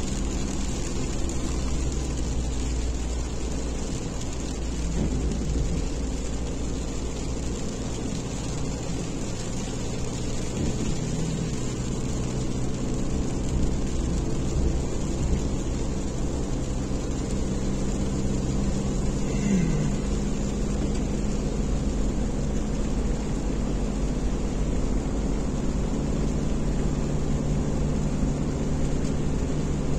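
Car driving on a wet road in the rain, heard from inside the cabin: a steady engine drone with road and tyre noise.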